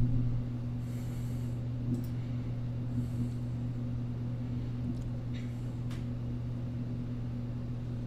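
Steady low hum with a few faint short clicks.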